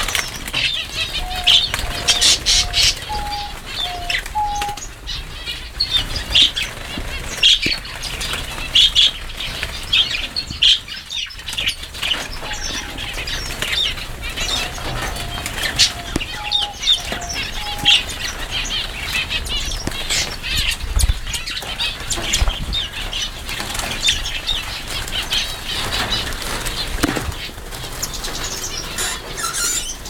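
A mixed flock of aviary finches, zebra finches and Java sparrows among them, chirping constantly with many overlapping short, high calls, with wings fluttering. A run of short, lower-pitched notes comes twice, once near the start and again in the middle.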